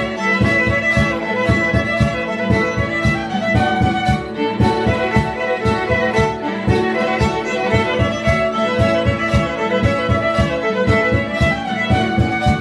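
Live instrumental music played by a small group of musicians, with a quick rhythm of short, accented notes.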